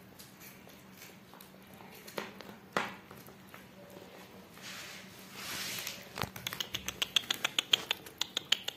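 Cats feeding at a plate with faint scattered ticks of eating. A brief hissing rush comes about five seconds in. Near the end comes a quick run of sharp metallic clicks, about six a second, from a hand-held metal kitchen utensil working at the roast chicken.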